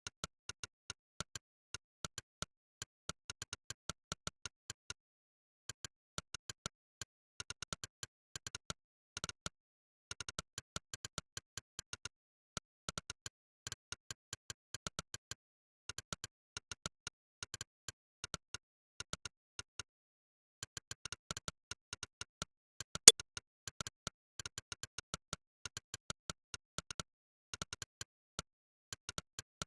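Monkeytype's "click" keystroke sound effect, one short synthetic click per keypress, coming in quick runs of typing with brief pauses, and one much louder click about 23 seconds in.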